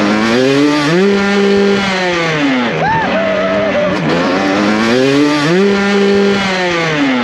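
Motocross bike engine revving hard, holding high revs and then dropping off, twice in a row, each time followed by a short throttle blip: freestyle motocross bikes accelerating up the take-off ramp for jumps.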